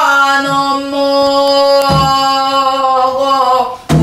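A woman singing in Korean Namdo folk-song style, holding one long note at a steady pitch that ends just before the close. A buk barrel drum is struck a few times underneath, marking the rhythm.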